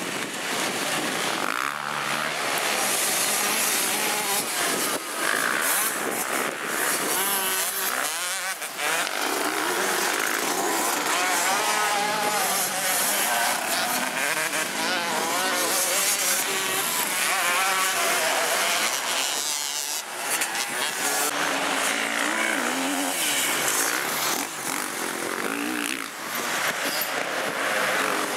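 Motocross dirt bikes racing on a dirt track, several engines revving hard, their pitch rising and falling repeatedly as the bikes accelerate and slow for the corners.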